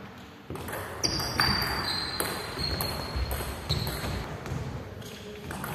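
Table tennis ball clicking off bats and table in a short rally that opens with a serve, with a few high squeaks from shoes on the wooden hall floor.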